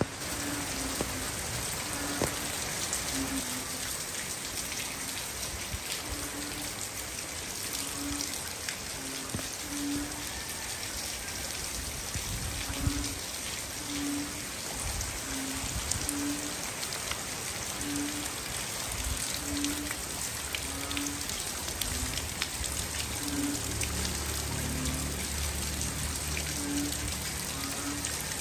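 Steady rain pouring down on banana and bamboo leaves, with a dense patter and scattered louder drops.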